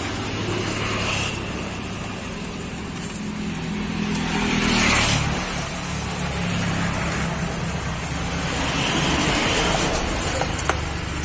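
Road traffic: a steady engine hum, with vehicles swelling past about five seconds in and again near the end. A single light click comes just before the end.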